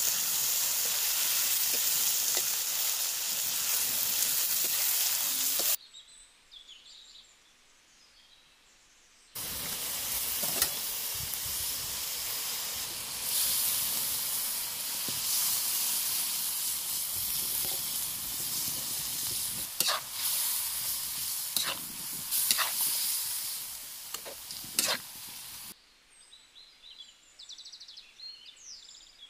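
Chicken sizzling as it fries in oil in a large metal pan over a wood fire, stirred with a metal spoon, with a few sharp knocks near the end. Partway through, water is poured from a kettle into the hot pan. The sizzling cuts out abruptly twice, leaving faint birdsong.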